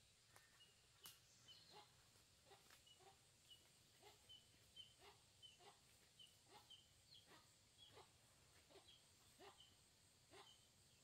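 Faint animal calls over near silence: short chirps repeating evenly, about two a second.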